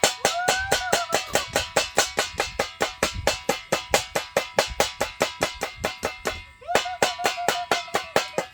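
Fast, even percussion beat of bright metallic strikes, about five a second, each ringing briefly. A gliding pitched line comes in twice, near the start and again near the end. The beat starts and stops abruptly.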